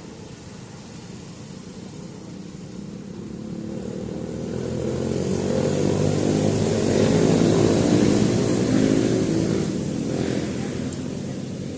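Engine of a motor vehicle passing by, growing louder to a peak about two-thirds of the way through and then fading away.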